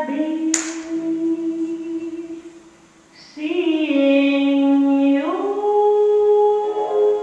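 A woman singing a slow jazz ballad in long, held notes, the voice fading briefly in the middle before coming back on a new note. A sharp click sounds about half a second in.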